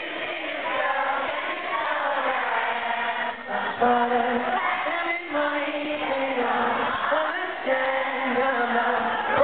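Concert crowd singing and chanting together, many voices blending, with the live band's music underneath; it gets a little louder about four seconds in.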